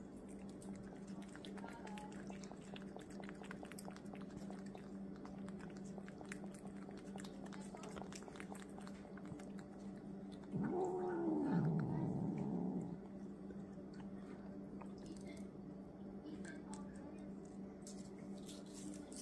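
A tabby cat gives one loud low yowl, about two seconds long, that rises and then falls in pitch, a little past halfway through. Around it are soft licking and chewing clicks at a squeeze-tube treat over a steady low hum.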